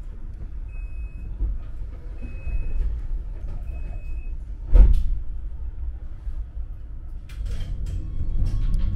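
Inside a tram standing at a stop: three short high warning beeps about a second and a half apart, then a loud thud about five seconds in as the sliding doors shut, over the tram's low steady rumble. A few lighter clicks follow near the end.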